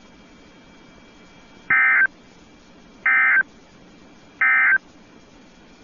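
Emergency Alert System end-of-message code: three short, identical bursts of warbling data tones, a bit over a second apart, signalling that the alert broadcast is over.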